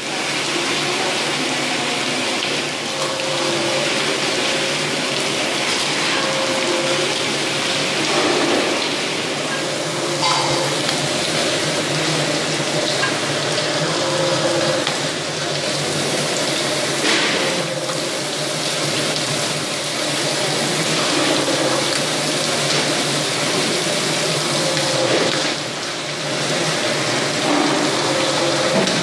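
Pisces FR 75 trout filleting machine running: a steady wash of running water with a machine hum underneath.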